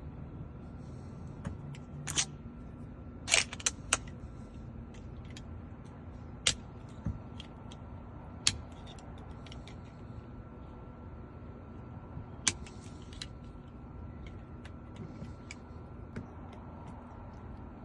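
Sharp, irregular metallic clicks and taps as a Hyundai Sonata door lock cylinder is taken apart by hand, the loudest cluster about three and a half seconds in, over a faint steady hum.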